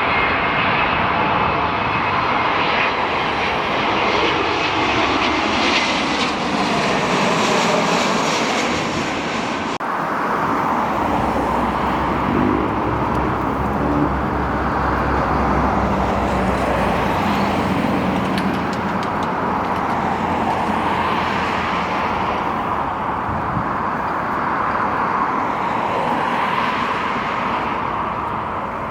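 Jet airliner engines as a plane flies past, a loud, continuous noise whose pitch slides as the aircraft goes by.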